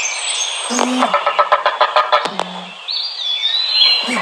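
Creature sound effect played as a Velociraptor call: rapid runs of bird-like chirping and chattering over a steady hiss, with a high whistling note that slides down about three seconds in. No real dinosaur call is known; this is a made-up or bird-based effect.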